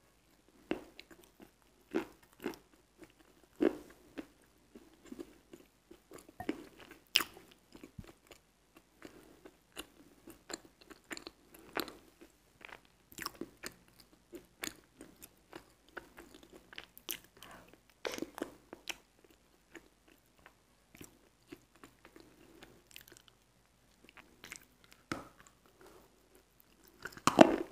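Wet crunch: a block of Akhtube chalk coated in a paste of pink Astana clay and water is bitten and chewed close to the microphone. It gives irregular crisp crunches every second or two over soft, wet chewing.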